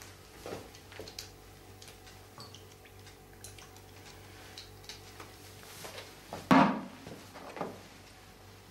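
Cooking sounds at a pot and a counter: scattered small clicks and taps of utensils and kitchenware, with one louder knock about six and a half seconds in and a lighter one a second later.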